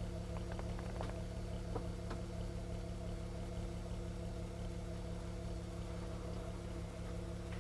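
Stock exhaust of a Volkswagen Golf R32 (Mk5) with its 3.2-litre VR6 engine idling steadily, picked up close to the tailpipes by a microphone on the rear bumper.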